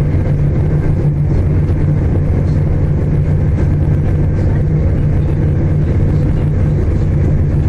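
Steady cabin noise inside a Class 221 Super Voyager diesel-electric train running at speed: a constant low drone from its underfloor diesel engines under a wheel-and-rail rumble.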